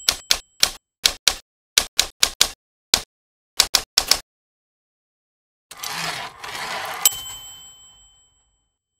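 Typewriter sound effect: about fourteen quick, irregular keystroke clicks in the first four seconds, then after a pause a rushing carriage-return slide that ends in a bright bell ding about seven seconds in, ringing on as it fades.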